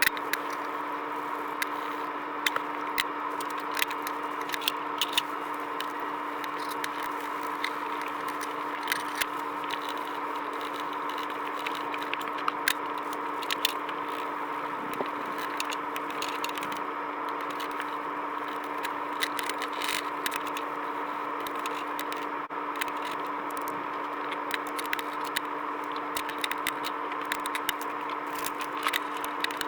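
A steady electric hum with small, irregular clicks and scrapes over it.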